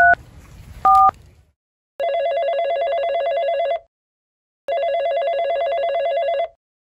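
A phone dialing out: two short keypad beeps in the first second, then the call ringing twice, each ring a warbling electronic trill just under two seconds long with a short pause between.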